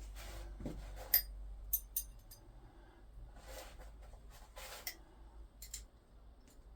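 Spanners being handled while finding the size for a brake caliper bleed nipple: scattered light clicks and taps, with a few brief soft rustles.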